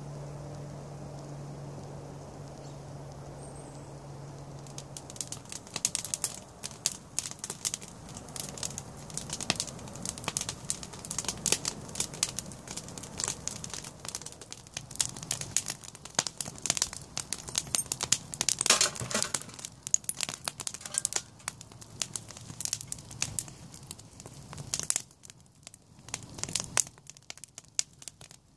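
Wood campfire crackling, with a dense, irregular run of sharp snaps and pops from burning sticks. The crackling starts about five seconds in, after a steady low hum.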